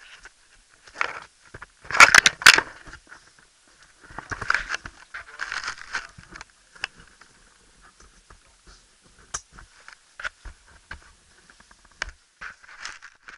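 Irregular scrapes, rustles and knocks of a caver's helmet and gear against rock while moving through a cave passage. A loud cluster of sharp knocks comes about two seconds in.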